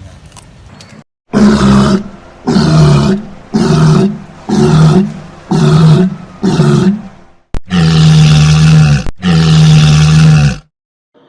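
An animal calling loudly: six short calls about a second apart, then two longer, steady calls.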